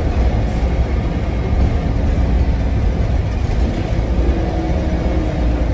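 Preserved single-deck bus's engine running under way, heard from inside the passenger saloon as a steady low rumble with road noise; a faint whine joins partway through.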